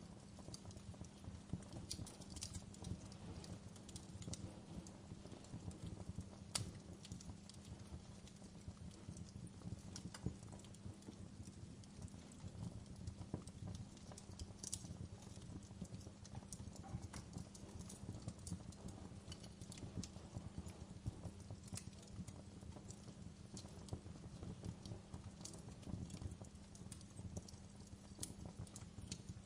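Wood fire crackling in a fireplace: a steady low crackle with scattered sharp pops and snaps.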